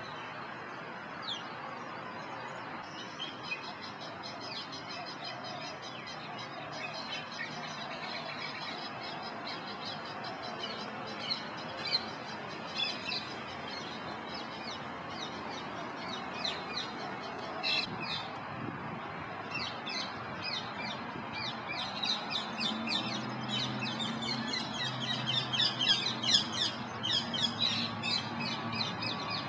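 Birds chirping: quick series of short, high calls over a steady outdoor background, thin at first and growing denser and louder over the last several seconds.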